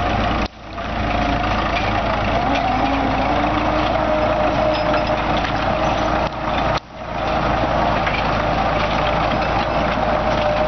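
Heavy diesel engine running steadily, with a whine that wavers and then holds. The sound drops out sharply twice and swells back, about half a second in and again near seven seconds.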